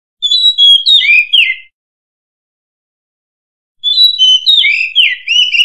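Oriental magpie-robin (murai kampung) singing loudly: two short phrases of clear whistled notes sliding up and down, the second starting a couple of seconds after the first ends. It is a volume-boosted lure-song recording of the kind bird keepers play.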